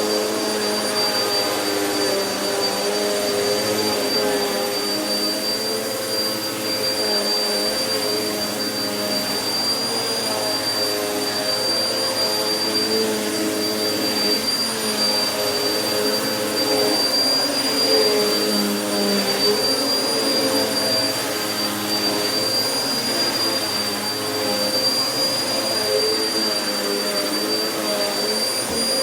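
Vacuum cleaner running continuously over carpet sprinkled with carpet powder: a steady motor whine with a high fixed tone, its lower tones wavering slightly as it is pushed back and forth.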